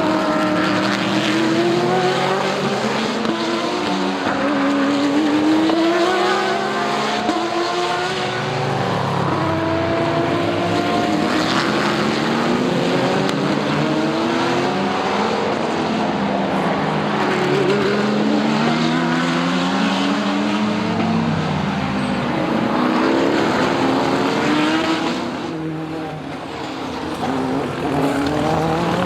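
Several sports-prototype and GT race cars at racing speed, their engines revving up and falling away through gear changes as they pass, with the notes of several cars overlapping. The sound eases briefly near the end, then picks up again as more cars come through.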